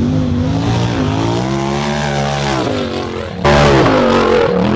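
Tube-chassis UTV race car's engine revving hard as it accelerates, the pitch wavering up and down and climbing in the middle. About three and a half seconds in it turns abruptly louder and higher as the car launches off the jump.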